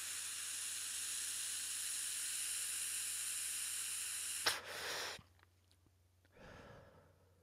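A long, steady inhale drawn through the mouthpiece of an Urbanleaf Mini dry-herb vaporizer: an airy hiss lasting about four and a half seconds, ending in a short, sharper breath. A faint exhale follows about two seconds later.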